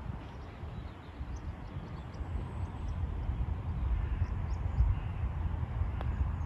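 Wind rumbling on the microphone outdoors, growing louder in the second half, with faint, scattered high bird chirps and a single faint click about six seconds in.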